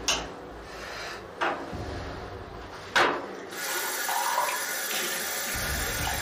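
Three short, sharp sounds about a second and a half apart, then a tap running steadily into a ceramic bathroom sink from about three and a half seconds in.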